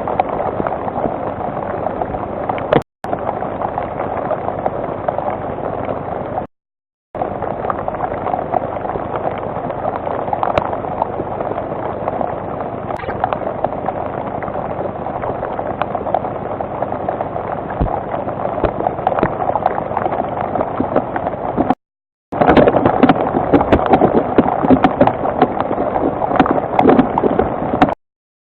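Rain falling steadily, a dense patter heard through a webcam microphone. It grows louder about two-thirds of the way through, and the stream's sound cuts out completely for a moment several times.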